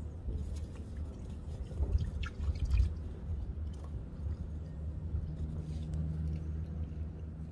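Outdoor harbour ambience: a low, uneven rumble with a few light drips and ticks about two to three seconds in, and a steady low hum that comes in about halfway through.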